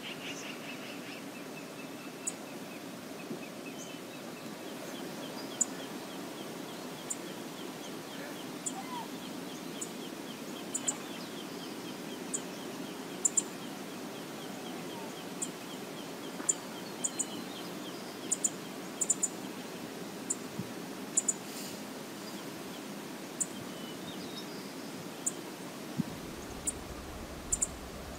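Outdoor wilderness ambience: a steady low rush with short, high bird chip notes scattered irregularly, and a faint rapid trill through the first half.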